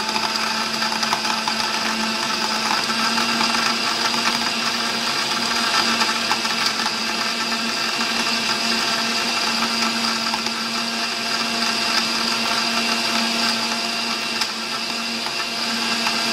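Countertop blender running steadily, its glass jug full of pisco sour mix (pisco, syrup, lime juice and egg white) being blended with ice cubes.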